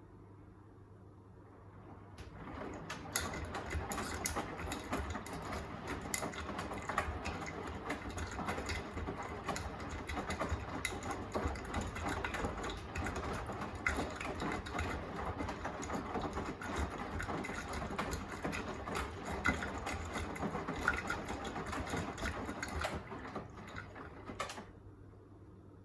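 Beko WTK104121A washing machine drum turning in a wash tumble, the wet load tumbling and sloshing with a steady run of small knocks. It starts about two seconds in and stops shortly before the end.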